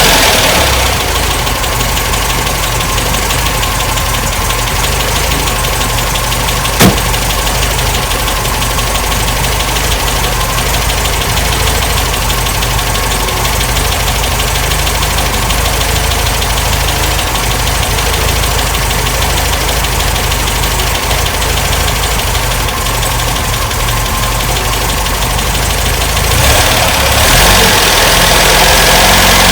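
MGB's four-cylinder B-series engine idling on its twin SU HIF carburettors after reassembly, running really lumpy. A single sharp click comes about seven seconds in, and the engine is revved up a few seconds before the end.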